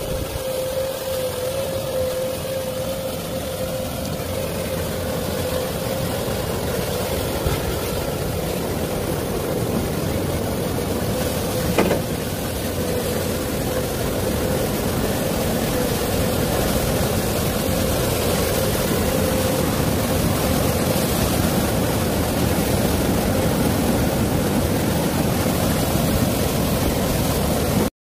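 Komatsu hydraulic excavator's diesel engine running steadily, with a constant whine over a noisy haze. A single sharp click comes about twelve seconds in.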